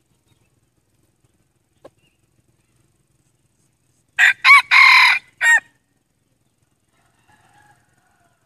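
Male red junglefowl crowing once, about four seconds in: a short, clipped crow in four parts, two quick notes, a longer middle note and a short final note. It is a decoy cock's crow of the kind used to lure wild junglefowl.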